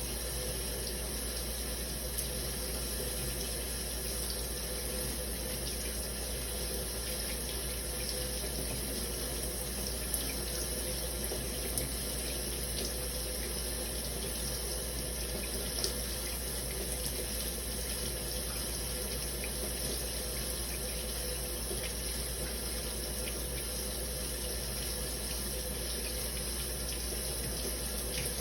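Shower running: a steady stream of water spraying and falling, with a few light ticks of drops here and there.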